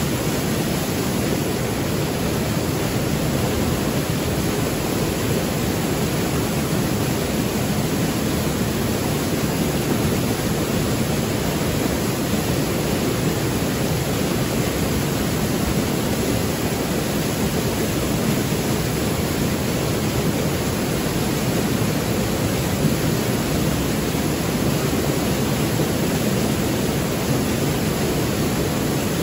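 Ulu Petanu waterfall: water pouring steadily into its pool, a constant even rush of falling water.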